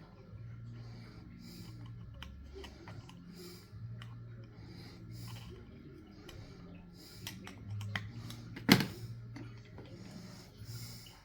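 Scattered light clicks and taps, with one sharp, loud knock nearly nine seconds in, over a faint low hum that comes and goes.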